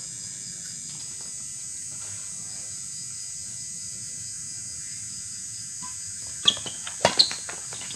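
Badminton rackets hitting a shuttlecock in a rally: a few sharp smacks in quick succession starting about six and a half seconds in, over a steady chirring of crickets.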